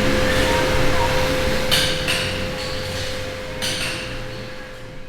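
Two sharp metallic knocks about two seconds apart over a steady hum, the sound fading away near the end.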